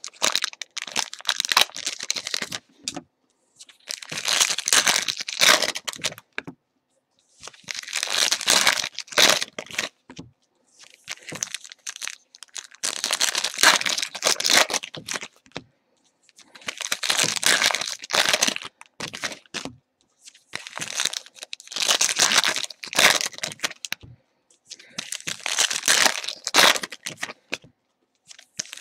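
Foil trading-card pack wrappers being torn open and crinkled by hand, in repeated bursts of crinkling with short silent gaps between them.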